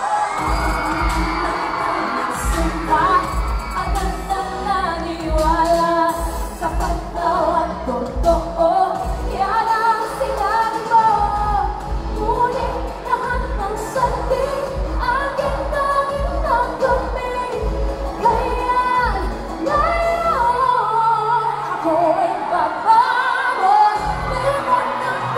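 Female pop singer singing live into a handheld microphone over an amplified backing track with a steady pulsing bass beat. The beat drops out for a few seconds near the end, leaving the voice and upper accompaniment, then comes back in.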